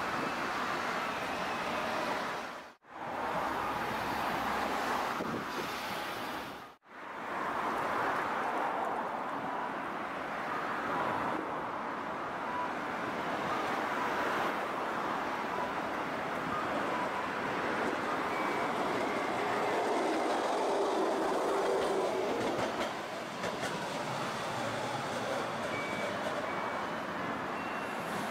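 Tosaden streetcar running along street track toward a tram stop, mixed with road traffic noise. The sound drops out briefly twice, about three and seven seconds in.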